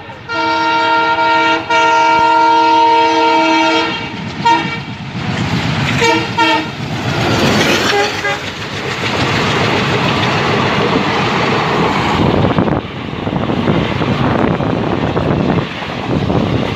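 WDM3D diesel locomotive's horn sounding a long chord-like blast with a brief break in it, then a few short toots, as an express train runs through at speed. After that comes the loud, steady rush of the passenger coaches passing close by.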